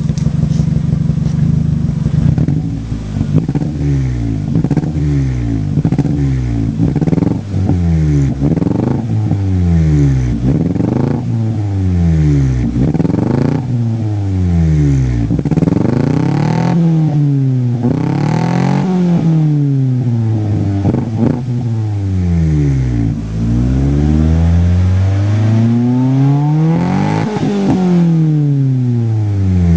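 Ford Probe II 2.0 16v four-cylinder engine through a sport exhaust, revved in place. It idles steadily for a moment, then is blipped over and over, each rev rising and falling in pitch about once every second or so, with one higher rev near the end.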